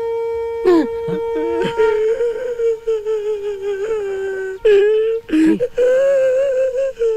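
A high held wind-instrument note, then a man's exaggerated comic wailing cry with a wobbling pitch, breaking off now and then into short sobs.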